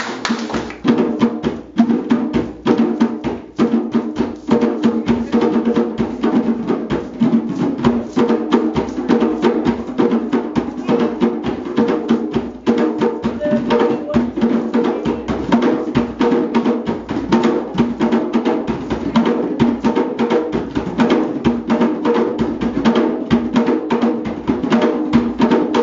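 Several hand drums played together in a fast, unbroken rhythm of many strokes a second.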